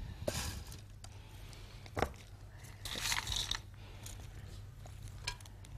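Faint rustling and a few light clicks from gloved hands and a ceramic bowl as garnish is sprinkled over a serving platter.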